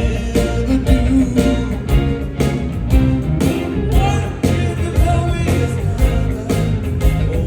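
Live rock band playing a song: a steady drum beat, bass and electric guitar, with a lead voice singing over them.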